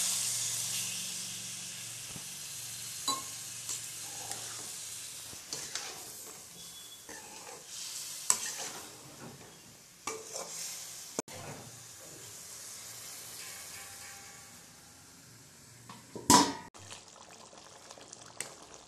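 Masala-coated chicken in a hot metal kadai sizzling as water is poured in, the sizzle dying down over the first few seconds. A ladle then stirs and scrapes the pan with scattered clinks and one louder clunk near the end.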